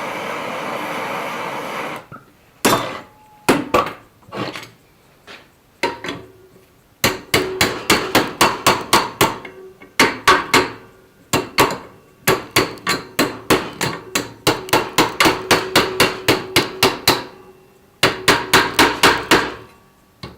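A steady rushing noise stops about two seconds in. It is followed by hammer blows on a steel bar being bent to shape, metal on metal with a short ring after each strike: a few scattered blows, then quick runs of about three to four strikes a second.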